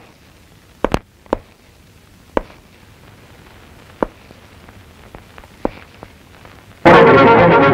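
About ten sharp, short knocks at irregular spacing over a quiet hiss. Near the end, loud orchestral film music with brass cuts in suddenly.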